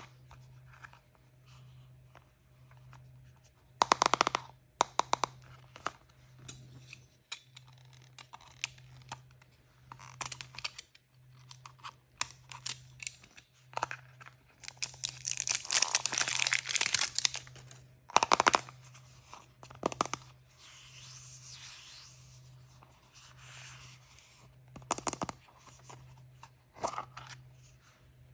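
Toy surprise packaging being handled and opened: wrappers torn and crinkled, with a longer stretch of tearing about halfway through and a few sharp snaps and clicks in between.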